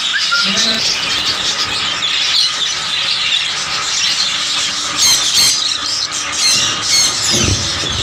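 Many caged small parrots, budgerigars among them, chattering and chirping continuously, with sharper, louder squawks about five and seven seconds in. A low knock comes near the end.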